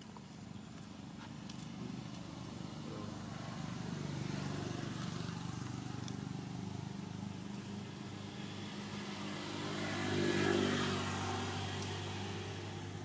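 A motor vehicle's engine hum going by, growing louder to a peak about ten seconds in and then easing off.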